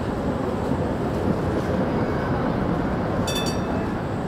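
Tatra T3 tram passing close on snowy street rails, a steady rumble of wheels and running gear. About three seconds in, a bell rings briefly.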